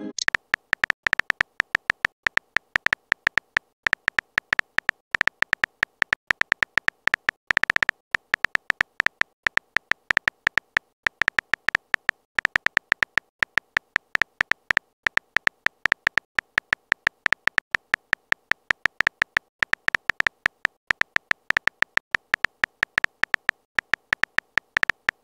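Texting-app keyboard sound effect: a rapid run of short, high-pitched clicking ticks, one per letter as a message is typed, with short pauses between runs.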